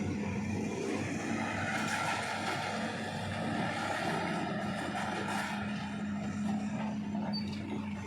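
Vehicle engine running steadily with a low, even hum, amid the noise of slow road traffic.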